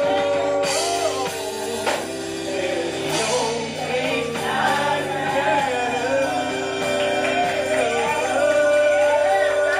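Gospel music: a voice singing a slow, sliding melodic line over sustained instrumental chords.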